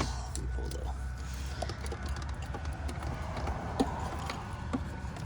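Small clicks and a creak as a Ford 4.6L V8's coil-on-plug ignition coil is worked loose and pulled from its spark plug well, over a steady low hum.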